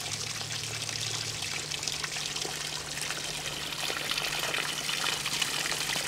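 Water pouring and trickling steadily out of a gold dredge rig onto the ground, with a faint steady low hum underneath.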